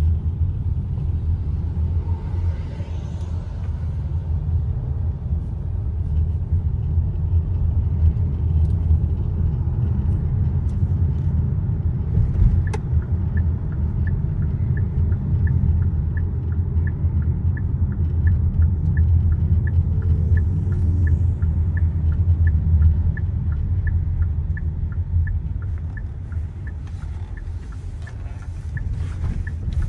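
Steady low rumble of road and tyre noise inside the cabin of a moving Hyundai Palisade. From about halfway through, a turn-signal indicator ticks evenly, about twice a second.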